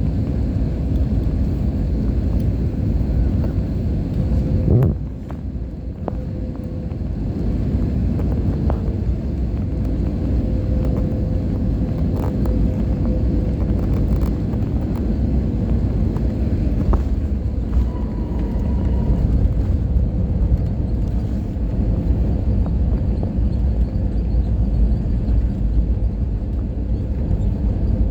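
Airliner cabin noise during landing: a steady low rumble of engines and rushing air, with a sharp thump about five seconds in.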